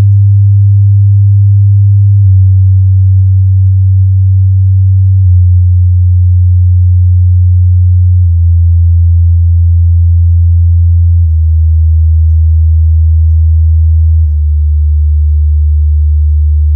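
Flowbeats Heera 4 Pro tower speaker playing loud low-bass test tones: a steady hum that steps down in pitch about every three seconds, with fainter overtones above each tone.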